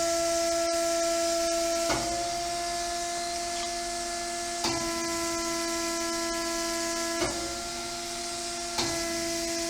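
ESAB 3500 hydraulic welding positioner's hydraulic drive running with a steady whine as the table tilts and lowers. Four sharp clicks come a few seconds apart, each with a slight change in the whine.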